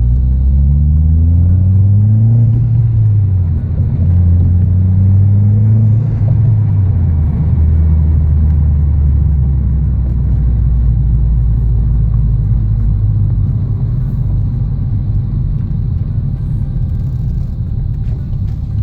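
Mitsubishi Lancer Ralliart's turbocharged four-cylinder engine and road noise while driving: a steady low rumble, with the engine note rising and falling in pitch a few times in the first several seconds, then holding steady.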